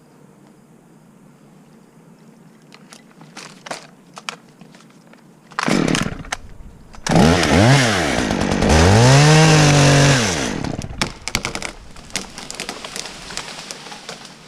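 Two-stroke chainsaw revving: it comes in loud about six seconds in, climbs to high speed twice over about three seconds, then drops away. Light clicks and knocks before and after.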